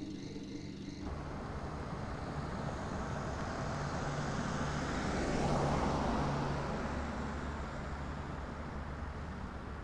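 A car driving past on a street: engine and tyre noise grows, is loudest about halfway through, then fades away.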